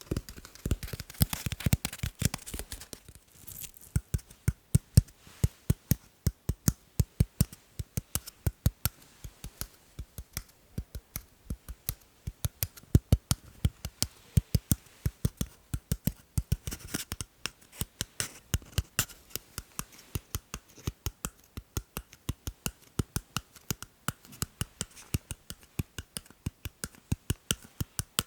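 Sharp tapping, several quick taps a second, falling into repeating rhythmic patterns that shift and break off. The first few seconds are denser and scratchier.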